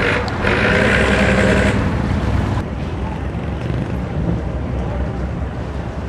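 Fishing boat engine running steadily. For about the first two and a half seconds a louder, higher-pitched noise sits over it, then stops suddenly.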